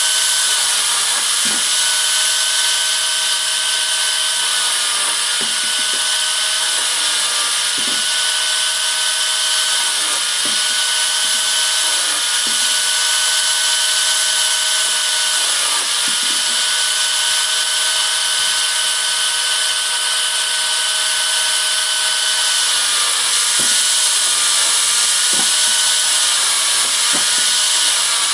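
Chainsaw mounted on a bench running steadily with a high whine, its pitch dipping briefly every few seconds as it cuts through branches and recovering between cuts.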